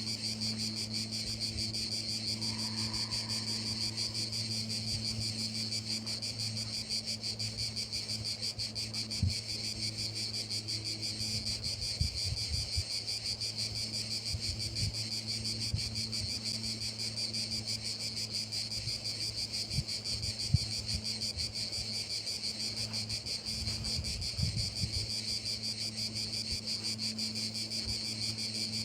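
Crickets trilling steadily in a continuous high chorus, with a steady low hum underneath and a few soft thumps scattered through.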